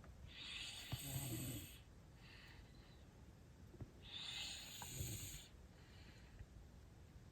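A person snoring in their sleep, one long snore about every three and a half seconds with quiet breathing between.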